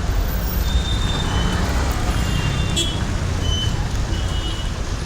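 Busy street ambience by a railway station and market: a steady low rumble of road traffic with faint crowd voices, and several short high-pitched tones scattered through it.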